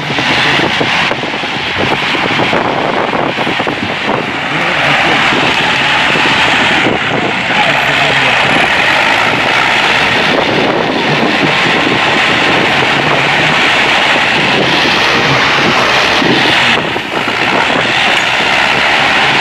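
Farm tractor engine running under load while it drags felled date palm trunks along the ground.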